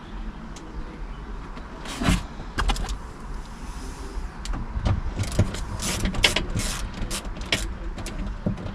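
A 1/4-inch drive ratchet and 10 mm socket clicking as the bolts are run into the door's handle mount, with scattered knocks of metal and plastic parts. The clicking comes in repeated strokes, about three a second, in the second half.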